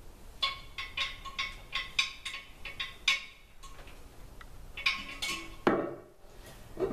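Porcelain toilet tank clinking and scraping against the bowl as it is set down and worked into place over its mounting bolts. A quick run of light, ringing clinks lasts about three seconds, then a few more and a heavier knock as it settles.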